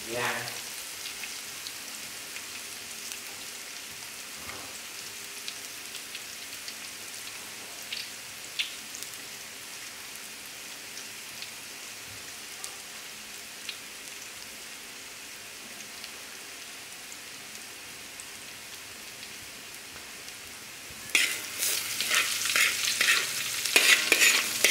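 Minced garlic and shallots frying in a pan: a steady sizzle with the odd small pop, turning into a much louder, crackling sizzle about three-quarters of the way through.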